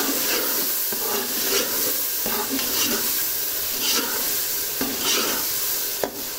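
Tomato and onion masala sizzling in oil in a metal pot while a steel ladle stirs it, scraping the pot in repeated strokes over a steady frying hiss.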